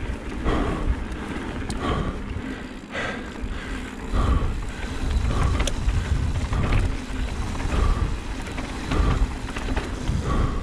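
Mountain bike riding down a dirt trail: wind buffeting the microphone over a low rumble of tyres on the ground, with a few sharp clicks and knocks from the bike.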